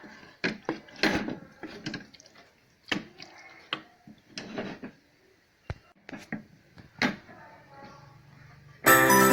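Scattered sharp knocks and clicks with faint voices in between, then loud music with chiming, held notes cuts in near the end.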